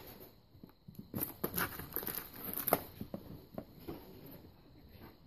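Cardboard and plastic toy packaging being handled and pulled apart: irregular rustling and crinkling with small clicks, busiest in the middle.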